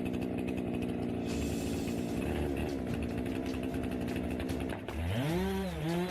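Chainsaw running steadily at high speed while cutting a tree, its pitch swooping up and down near the end.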